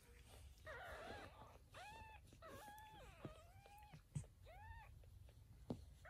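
Newborn kittens mewing faintly while nursing: a run of about five short, thin, high-pitched mews, some rising and falling, with a couple of soft clicks between them.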